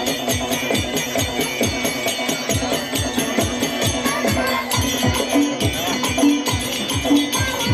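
Folk-theatre accompaniment music: a barrel drum beating a steady rhythm of deep strokes that drop in pitch, about two or three a second, over a steady drone, with bright jingling as the costumed actor dances.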